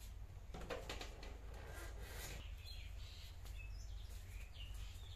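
A corrugated sheet-metal gate rattling and scraping as it is pushed open, for about two seconds, followed by small birds chirping on and off.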